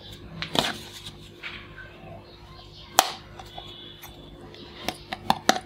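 Hard plastic toys clacking and knocking as they are picked up and handled on a table: a sharp knock about three seconds in, then a quick run of clicks near the end.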